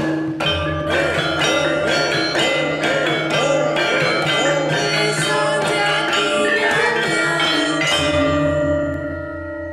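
Javanese gamelan (karawitan) music: bronze metallophones and gongs playing a ringing struck melody over a steady low hum. It starts to fade near the end.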